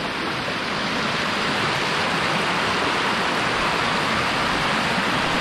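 River rapids rushing: a steady, continuous wash of white water over rocks.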